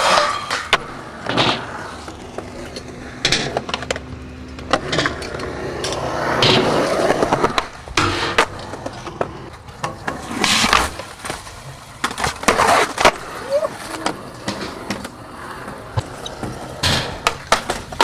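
Skateboard wheels rolling on smooth concrete, broken by many sharp snaps and slaps as the board is popped and lands, with longer scraping stretches of trucks grinding on concrete ledges.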